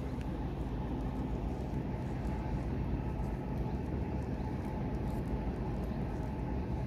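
Large container ship passing close, its engine giving a steady low drone with a constant hum.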